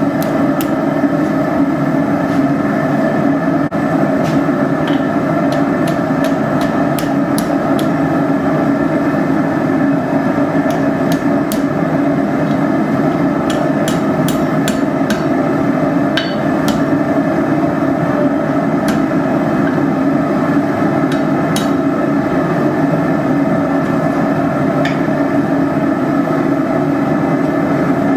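A forge running with a steady, loud roar, scattered with faint, irregular sharp ticks.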